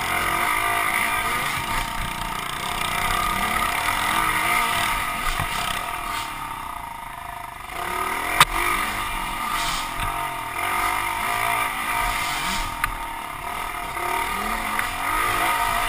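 Small four-stroke pit bike engines, around 110cc, revving up and down under throttle on a dirt trail. The engine note drops for a couple of seconds past the middle, and a single sharp knock comes at about eight seconds in.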